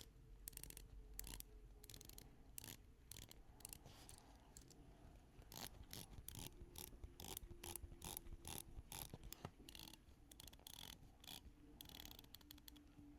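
Seiko SPB383 dive watch's unidirectional bezel being turned by hand: faint, quick ratchet clicks that come in irregular bunches with short pauses between turns.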